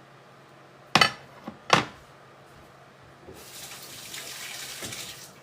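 Two sharp knocks, then a kitchen sink tap running for about two seconds.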